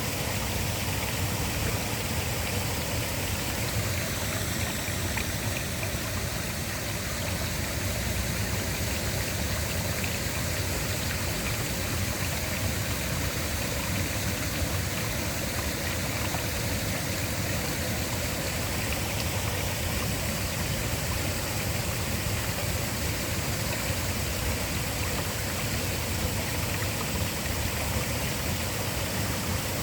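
Waterfall pouring: a steady, unbroken rush of water with a low rumble underneath and a bright hiss on top.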